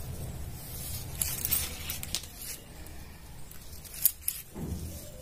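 Tailor's chalk scratching across blouse fabric in a few short strokes as marks are drawn, with the cloth rustling under the hands.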